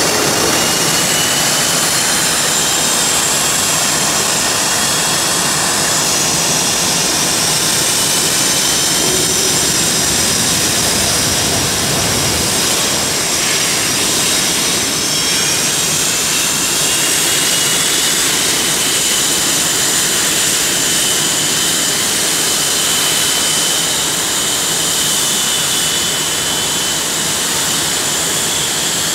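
F/A-18 Hornet jets taxiing close by, their General Electric F404 turbofan engines running at taxi power: a steady, loud rush with several high-pitched whines that drift slowly in pitch as the jets roll past.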